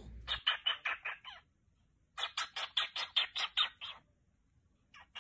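A pet bird making rapid series of short chirps, about seven a second, in two runs with a short pause between them and a third run starting near the end.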